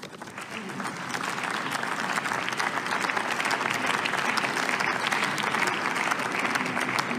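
Members of the Bundestag applauding in the plenary chamber: many hands clapping, swelling over the first second or two, holding steady, then starting to fade near the end.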